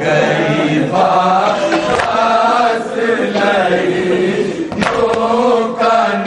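Men's voices chanting a Shia nauha, a mourning lament, in chorus with the lead reciter, the melody rising and falling in long sung phrases. A sharp slap, the hand striking the chest in matam, comes about five seconds in.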